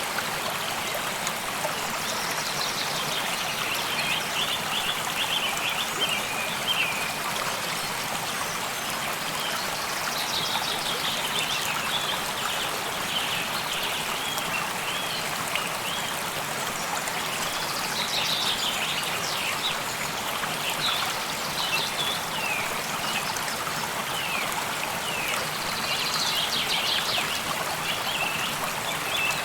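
A stream running steadily, with a bird singing over it in short bursts of quick, high chirps every several seconds.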